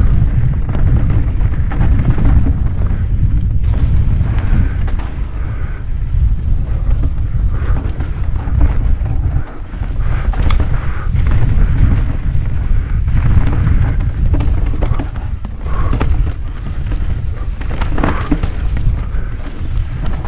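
Wind buffeting the GoPro MAX's microphone on a fast mountain-bike descent, a heavy low rumble throughout. Over it come many sharp knocks and clatters as the tyres and bike run over a rough dirt and rock trail.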